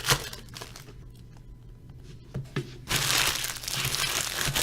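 Plastic packaging being handled and torn open: a few sharp clicks, then from about three seconds in a continuous crinkling.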